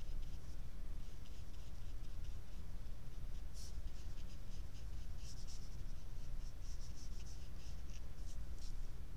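Watercolor brush stroking and dabbing on paper: many short, light scratchy strokes over a steady low hum.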